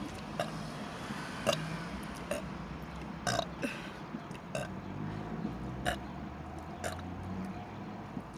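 A woman burping: long, low, drawn-out burps, the longest filling most of the second half, with brief sharp clicks scattered between them.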